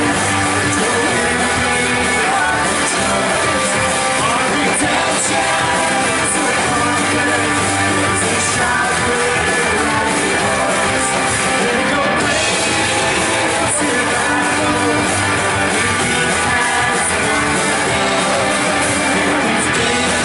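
A live worship band playing a rock-style song with guitars, drums and singing, at a steady loud level.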